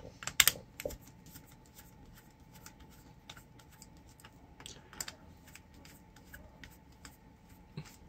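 Screwdriver clicking and scraping against the screws of a plastic power-cord plug as it is taken apart. A few louder clicks in the first second, then soft, irregular ticks.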